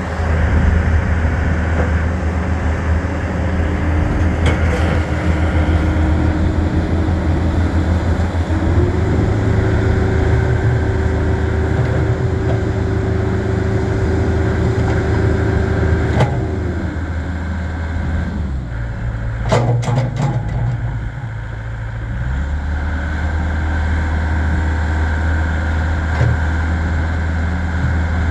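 Takeuchi TB070 compact excavator's diesel engine running steadily while the boom and bucket are worked, with a steady hydraulic whine under load that stops about halfway through. The engine note drops for a few seconds after that, with a few sharp metallic clanks around twenty seconds in.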